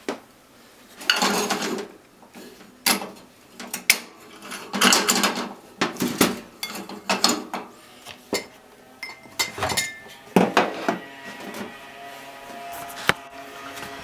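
Kitchen clatter: an irregular run of knocks, clinks and short scrapes from dishes and utensils being handled.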